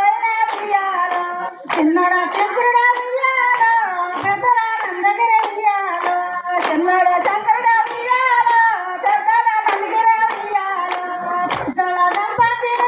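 Women singing a folk song, with hand claps keeping an even beat of about two claps a second.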